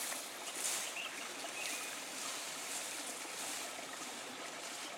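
Steady outdoor background hiss, like open air with running water, with a couple of faint short chirps near the middle.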